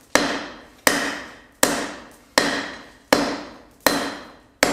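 Large rounding hammer striking a hot steel bar on an anvil in an even rhythm, seven blows a little more than one a second, each ringing out and fading before the next. The blows are drawing out and pinching in the end of the bar.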